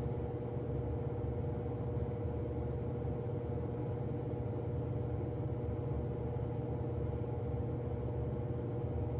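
A steady low hum with one steady higher tone above it, unchanging throughout, like a motor or ventilation system running.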